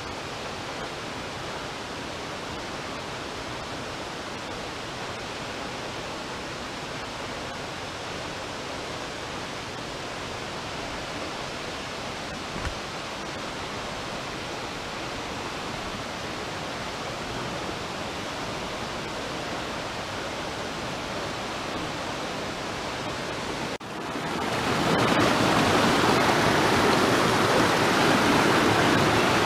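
Steady rushing of a waterfall and rocky stream. About 24 seconds in it cuts to the much louder, closer rush of fast whitewater pouring between boulders.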